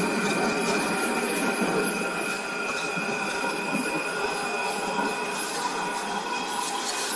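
2009 Triumph Speed Triple's 1050 cc inline-triple engine running at a steady cruise, an even high-pitched whine that holds its pitch, over a constant rush of road and wind noise.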